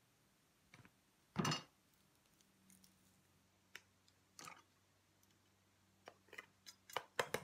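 Kitchen handling sounds as garlic is pressed through a handheld garlic press over a plastic tub: a dull knock about a second and a half in, a few soft clicks, then a quick run of light clicks and taps near the end.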